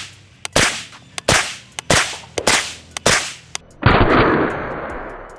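Suppressed 9mm Kalashnikov-pattern carbine firing semi-automatically through a JK Armament solvent-trap suppressor running six baffles, shots about two-thirds of a second apart with small clicks between them. Near the end comes a louder burst of noise that fades over about a second and a half.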